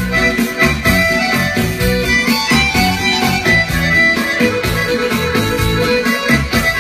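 Accordion and electronic keyboard playing a Balkan folk tune without vocals. The keyboard supplies a steady beat and bass under the accordion's melody.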